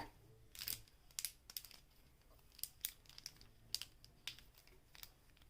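Plastic Wacky Track fidget chain being handled, its snap-jointed links clicking as they are bent: faint, irregular small clicks, about a dozen spread unevenly.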